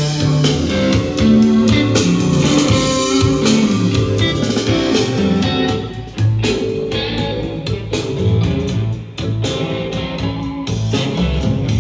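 Guitar-led music with drums played loud through a pair of Nuance bookshelf loudspeakers with 8-inch woofers.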